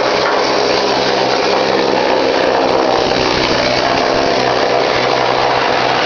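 Pneumatic needle gun hammering on steel plate, a loud continuous rattle as it chips defective paint off the steel.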